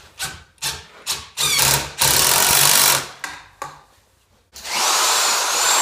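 Drill with a small extension bit driving a screw through the back of an electrical outlet box into wood, run in several short trigger bursts and one longer run of about a second. After a brief pause, a steady motor run with a rising whine starts near the end.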